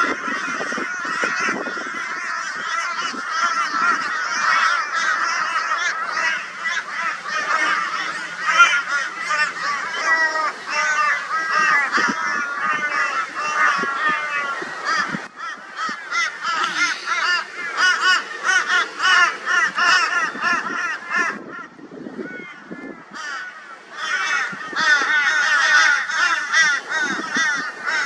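A flock of crows cawing loudly and raucously, many calls overlapping in a dense, continuous chorus: mobbing calls raised against a barn owl. The chorus thins out briefly about three quarters of the way through, then picks up again.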